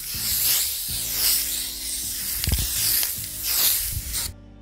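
Spray-paint aerosol hiss in several long sprays, over low background music; the hiss cuts off suddenly about four seconds in.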